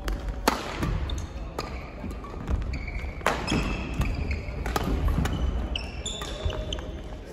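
Badminton doubles rally: racket strings striking the shuttlecock in sharp cracks every second or so, with sneakers squeaking and thudding on the wooden court floor.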